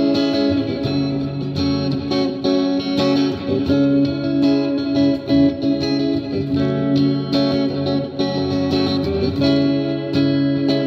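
Custom PRS-style electric guitar played through an effects pedal: a continuous run of picked notes and phrases.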